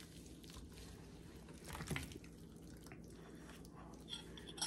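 Faint, soft wet squishing as a gloved hand smears a mustard and hot-sauce binder over a raw beef roast.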